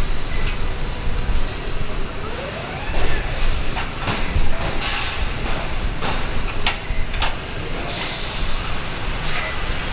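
Car-plant assembly-line machinery din: a steady rumble broken by several sharp metal clanks, a short rising whine about three seconds in, and a hiss of compressed air starting about eight seconds in.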